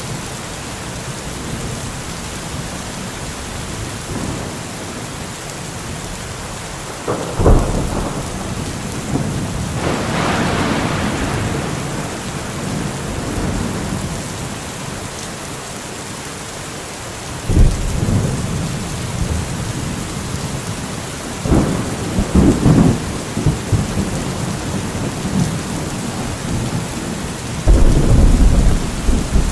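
Steady rain falling in a thunderstorm, with several rolls of thunder rumbling in over it.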